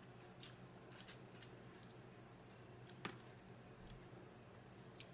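Near silence with a few faint, sharp clicks, most of them in the first two seconds and one about three seconds in: small eating noises while tasting lemon.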